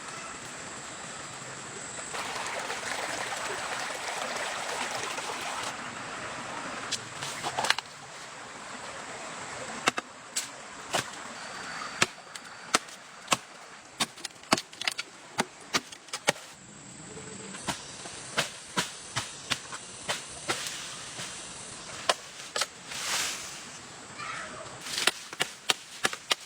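Repeated sharp chopping strokes, single knocks landing irregularly about one or two a second, after a few seconds of rustling noise near the start.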